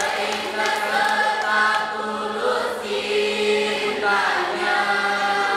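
Choir singing a slow Indonesian pop song in several voice parts, long held chords that change every second or so.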